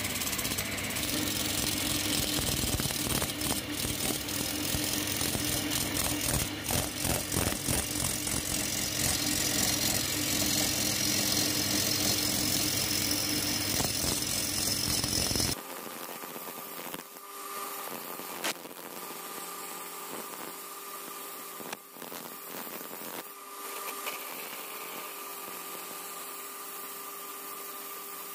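Belt-driven wood lathe running while a hand-held chisel cuts into a spinning wooden blank, a dense scraping, rattling noise over the machine's steady hum. About halfway through, the sound drops abruptly to a quieter, thinner steady whine with a few sharp clicks.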